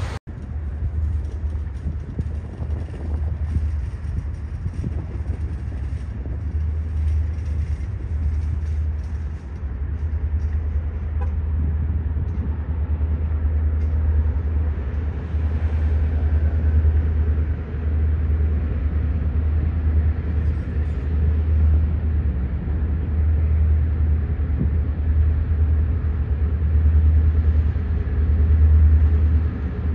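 Diesel engines of a lash-up of EMD Geep freight locomotives working toward the microphone: a steady low drone that grows gradually louder as they approach.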